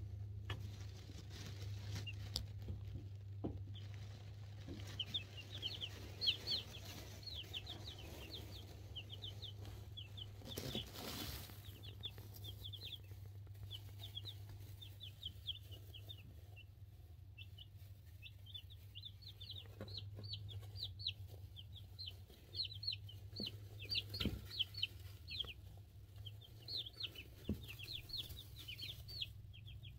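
Two-week-old chicks (cream crested legbar, buff orpington, black sexlink and silkie) peeping in a brooder: quick, high, falling peeps in runs, over a steady low hum.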